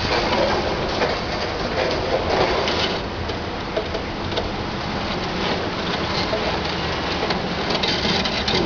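High-reach demolition excavator working at the top of a building: a steady dense crackling of breaking and falling concrete and debris, with the machine's engine running underneath.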